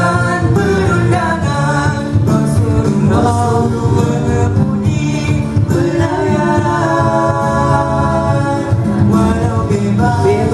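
Nasyid group of male voices singing together in harmony through handheld microphones, without a break.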